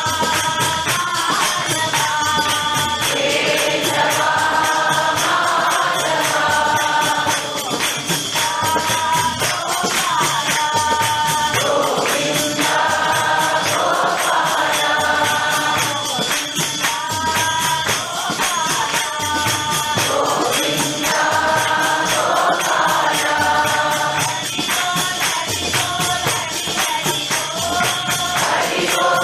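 Group of voices singing a Hindu devotional bhajan in repeated melodic phrases, with hand percussion keeping a steady beat.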